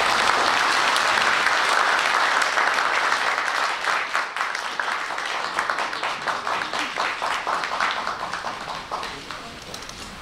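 Audience applauding: dense, loud clapping that thins out and fades gradually over the second half.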